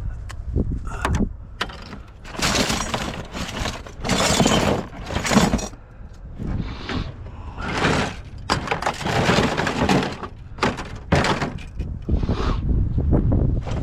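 Loose scrap metal crashing and clattering as it is tossed and unloaded: a string of irregular loud crashes and sharp clanks over a low steady rumble.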